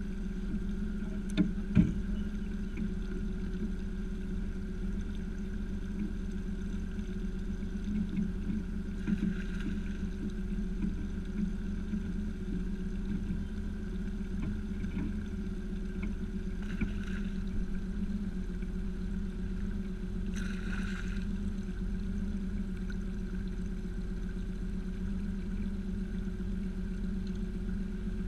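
Steady hum of a small boat's motor over a low rumble, with a short knock about two seconds in.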